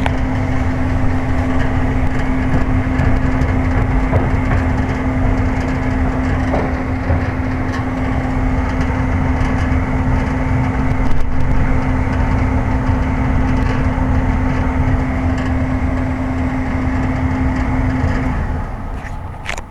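Upstairs gas furnace's blower running steadily, moving air with a constant motor hum, then shutting down near the end as it winds off after the thermostat is turned off.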